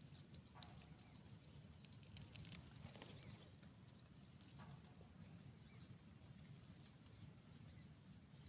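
Near silence: faint outdoor background hum with light scattered clicks and rustles, and a few faint short high chirps spaced a couple of seconds apart.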